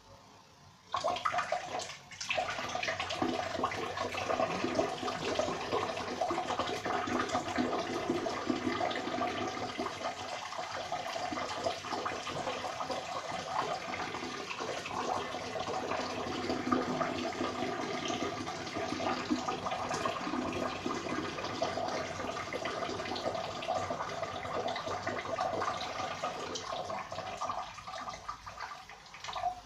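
A person urinating into a toilet bowl: a steady stream of liquid splashing into water. It starts suddenly about a second in, falters briefly just after, then runs on until it tapers off and stops near the end.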